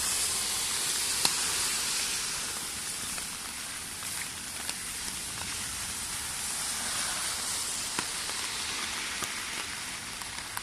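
Typhoon rain falling steadily in a continuous hiss, with a few sharp ticks of drops striking scattered through it.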